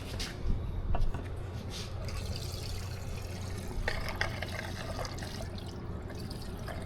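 Gasoline being poured into a mini bike's fuel tank: a steady trickling pour, with a few small clicks and knocks near the start and about four seconds in.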